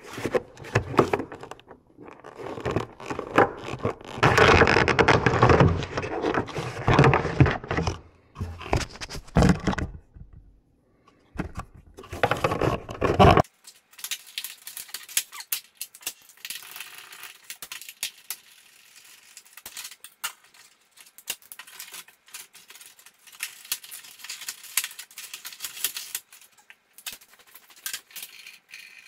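Metal tools and parts clattering, scraping and rattling. About halfway through the sound cuts off abruptly and becomes quieter, scattered metallic clicks and clinks.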